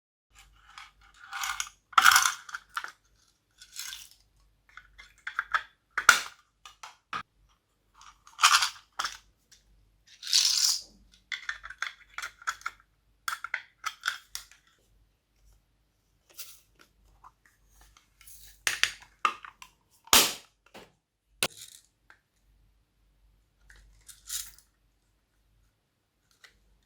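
Glossy slime being squished and folded by hand, in irregular bursts of wet crackling and popping with a few sharp clicks and short pauses between handfuls.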